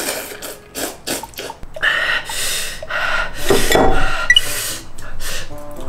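Loud, wet slurping of spicy ramen noodles from a bowl, several slurps in a row with short breaks between.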